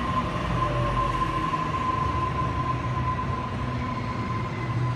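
Sydney Trains Waratah electric train alongside the platform, its equipment giving a steady high whine over a low hum.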